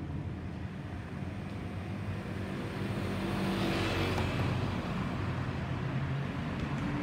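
Airbus A320-216's CFM56 jet engines passing overhead: a broad rushing rumble that swells to its loudest and brightest about four seconds in, then eases off, over a steady low hum.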